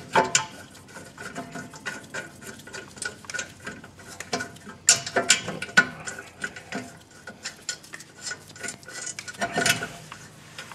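Irregular small metallic clicks, taps and scrapes of a brake caliper bolt being lined up and started by hand in the rear brake caliper of a 2005 Nissan X-Trail T30. A few louder clinks come about halfway and again near the end.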